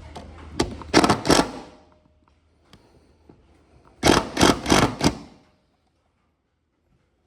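Sharp knocks in two clusters: a quick group of knocks, then about three seconds later four evenly spaced knocks about a quarter second apart.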